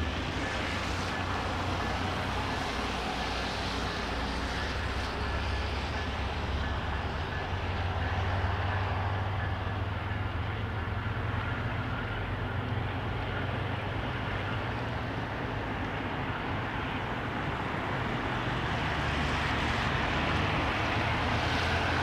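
A train passing through the station: a steady rush of wheel and rail noise over a low rumble, holding without a break.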